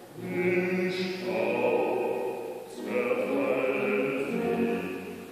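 Mixed choir of men and women singing sustained phrases, a new phrase starting about three seconds in.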